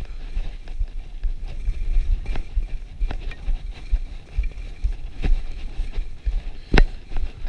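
Skis running and scraping over groomed snow at speed, with wind buffeting the camera's microphone, and a few sharp knocks scattered through, the loudest near the end.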